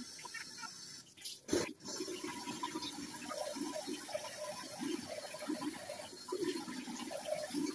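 Bathroom tap running into a sink, a steady hiss of water with irregular splashes as lathered face wash is rinsed off the face.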